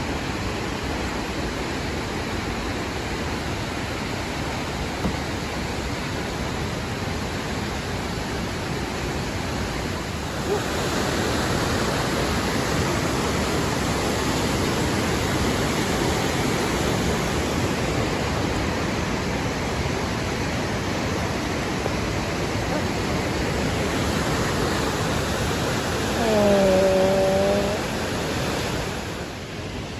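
Steady rushing noise of a waterfall, growing louder about ten seconds in. Near the end a short pitched call with falling pitch sounds over it for about a second and a half.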